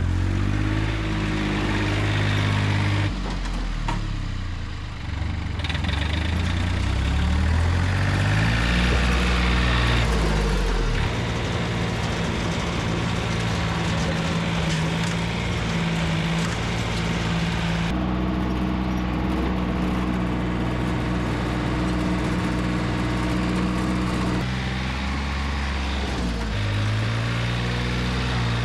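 Three-cylinder Yanmar diesel engine of a C25R crawler dumper running, its pitch rising and falling as the throttle changes during the first ten seconds or so and again near the end, with a steadier stretch in between and several abrupt jumps in the sound.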